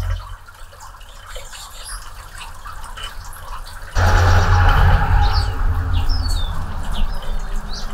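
Anna's hummingbirds giving short, high, squeaky chirps and chips at a nectar feeder, the calls growing busier in the second half. About halfway through, a loud low hum comes in suddenly and runs under the calls.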